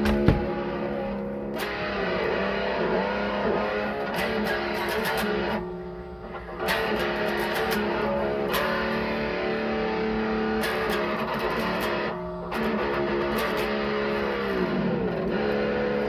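Guitar playing held, ringing notes with some sliding pitch bends. It drops out briefly about six seconds in and again about twelve seconds in.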